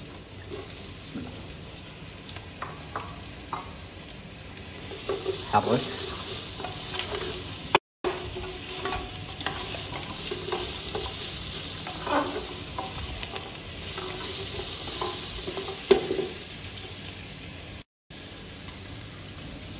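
Garlic, shallots, curry leaves and whole spices frying in oil in a metal cooking pot, sizzling, while a wooden spatula stirs them with scraping and tapping against the pot. The sizzle grows louder about five seconds in and cuts out briefly twice.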